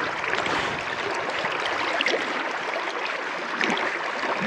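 River current running fast and shallow: a steady rushing wash with small splashes and gurgles.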